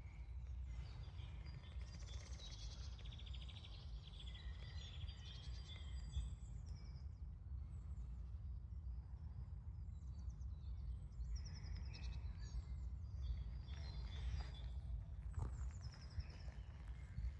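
Birds chirping and trilling over a steady low rumble outdoors.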